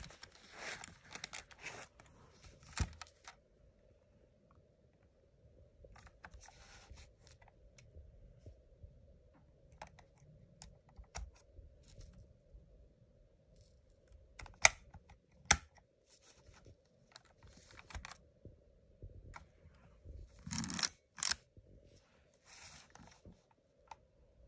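Hands handling a Vivitar 604 pocket film camera and its leather case: scattered rustling and scraping with sharp plastic clicks, the two loudest about a second apart midway through.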